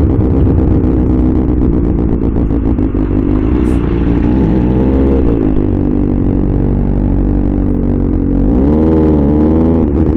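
2024 Kawasaki Ninja ZX-6R's 636 cc inline-four running through an SC Project aftermarket exhaust at low, fairly steady revs, with two short throttle blips, one about four seconds in and one near the end.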